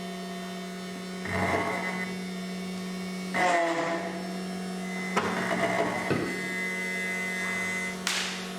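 SEC-E9 CNC key cutting machine cutting a DWO4 key blank: a steady motor hum, broken four times by short bursts of higher grinding as the cutter bites into the blank.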